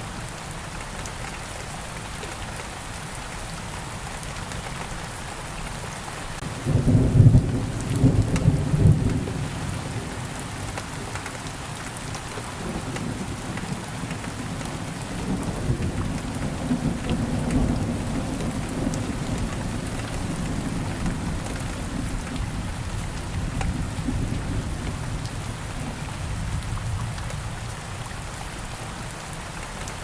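Steady rain falling through a thunderstorm. About seven seconds in, a sudden loud thunderclap cracks and rumbles for a couple of seconds, followed by a long low roll of thunder that swells and fades over the next fifteen seconds or so.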